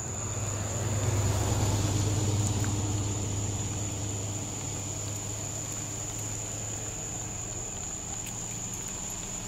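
A motor vehicle's engine hum that swells about a second in, then eases off to a steady lower level over the next few seconds, with a steady high-pitched tone throughout.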